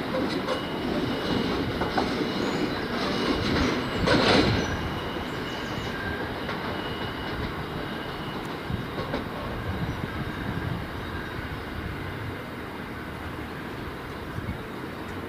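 Freight train rolling past on the rails, with wheel clatter and a faint intermittent wheel squeal. It is loudest about four seconds in, then slowly fades as the train draws away.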